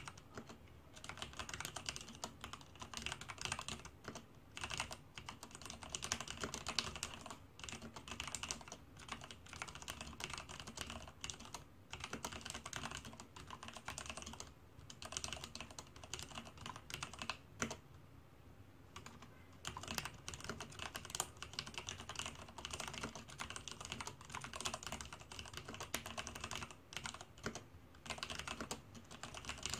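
Leopold FC660M mechanical keyboard with Cherry MX Black linear switches being typed on: a steady, fast clatter of keystrokes, pausing briefly twice around the middle.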